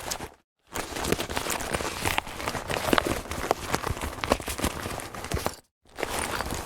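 A leather bag being handled: irregular rustling and many small knocks and clicks of the material and its fittings. The sound stops briefly just after the start and again near the end, as one recorded take gives way to the next.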